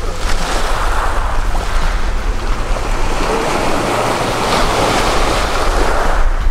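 Small waves breaking and washing up over a black pebble beach, with wind buffeting the microphone.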